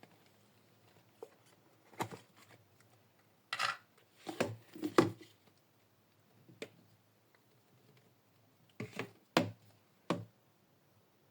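Hands handling small toy packaging: a string of short clicks, taps and brief rustles in irregular clusters, with a few seconds of quiet between them.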